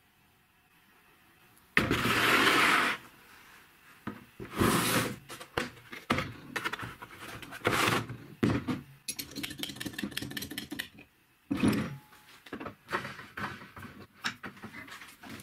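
Workbench handling noises: a loud sliding scrape lasting about a second, starting about two seconds in, then a run of knocks, clicks and clatter as a hydraulic bottle jack is handled in its plastic case and set against a steel bench vise.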